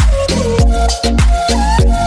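Background music with a driving beat: deep kick drums with a falling pitch, about two to three strokes a second, under short high percussion hits and synth notes.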